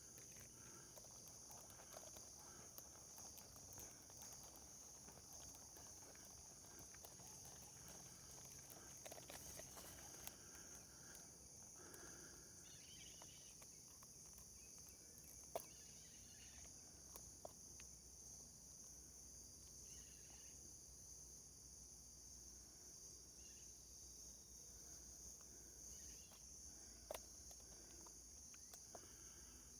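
Near silence with a faint, steady, high-pitched insect chorus, broken by a few soft clicks.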